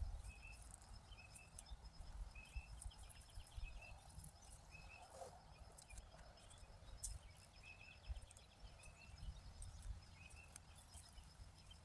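Faint yard ambience: a bird gives short chirps about once a second over the steady fast ticking of an insect, with scattered light clicks and rustles.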